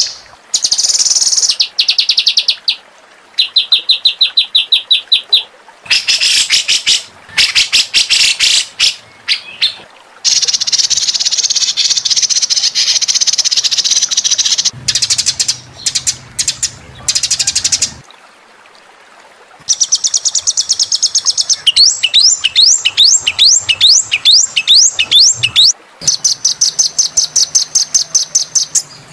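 Songbird song: sharp, high-pitched rapid-fire trills and rattling phrases in bursts, with short pauses between them and a lull of about two seconds past the middle. Later comes a run of quick, repeated rising notes.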